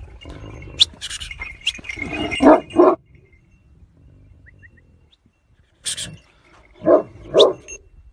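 Turkish shepherd dog barking: two barks in quick succession about two and a half seconds in, and two more about seven seconds in.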